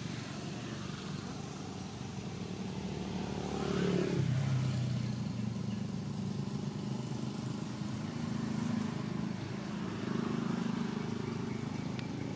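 A motor vehicle's engine running steadily, its pitch falling about four seconds in as the sound swells.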